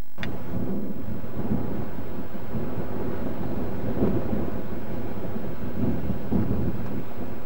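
Wind buffeting a camcorder microphone: a steady, low rumble, cut by a brief dropout just after the start.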